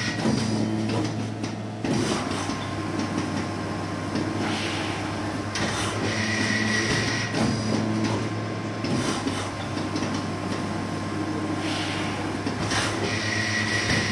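A machine running with a steady hum, broken by clicks and knocks, and a high whine that comes back about every six and a half seconds, as if the machine is working through repeated cycles.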